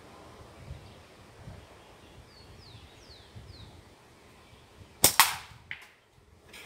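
Slingshot shot: a sharp crack of the released rubber bands, followed a split second later by the shot striking and punching through a tin can target, then a few lighter ticks.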